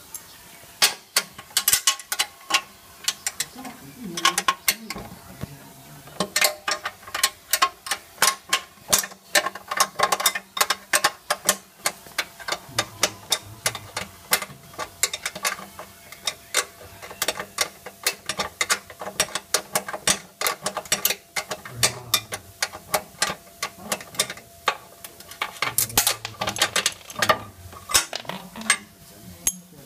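Ratchet wrench clicking in quick runs with short pauses, turning bolts while the front drive of a lawnmower is taken apart.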